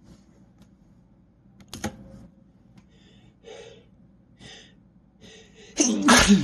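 A man's gasping, catching in-breaths building up to a loud sneeze near the end.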